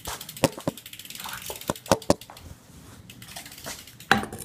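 A BMX bike being turned upside down: irregular knocks and clicks from the frame and parts being handled, with mechanical clicking.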